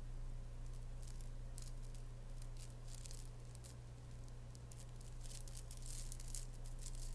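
Necklace of small flat discs clicking and rattling against each other as it is untangled and shaken. Many quick, light clicks, thickest about three seconds in and again near the end.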